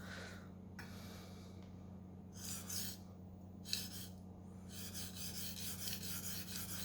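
Steel knife blade scraping across a wet Naniwa splash-and-go whetstone in sharpening strokes. A few separate strokes come first, then from about five seconds in a quick, even run of short back-and-forth strokes.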